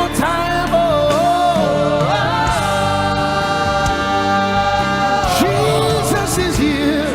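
Live gospel worship song: a singer holds one long, steady note over the band, then drops into a lower sung phrase near the end.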